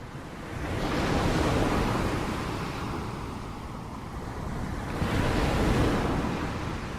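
Ocean waves breaking on the shore, two waves rolling in and crashing, the first about a second in and the second about five seconds in, each washing out afterwards.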